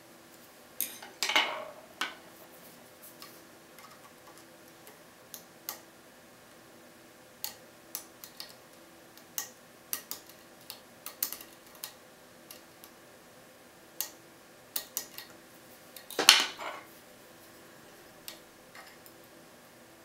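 Lock picks working in the keyway of a Keso 2000 lock cylinder, whose pins sit on three axes: scattered light metallic clicks and ticks, with two longer, louder metal scrapes about a second in and again near sixteen seconds.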